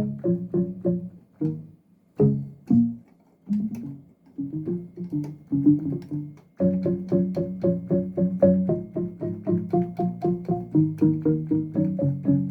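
Roland M-DC1 Dance sound module playing a plucked, keyboard-like synth patch: short chords repeated rapidly in a steady rhythm, about three to four a second. They thin to a few scattered hits with a short gap about two to four seconds in, then come back in a dense, even run from about seven seconds in.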